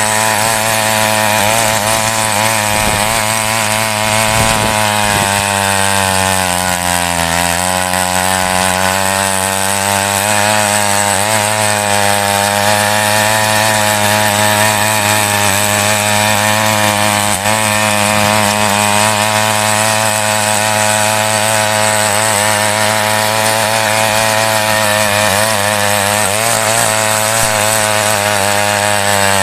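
Mini power weeder's small petrol engine running hard as its rotary tines churn soil. The engine pitch wavers with the load and sags for a couple of seconds about seven seconds in as the tines dig in, then picks back up.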